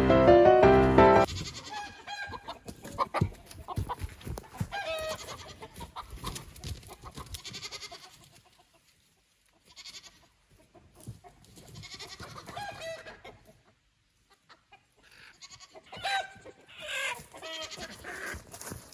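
Chickens clucking and calling in irregular bursts, with quiet gaps between. Piano music ends about a second in.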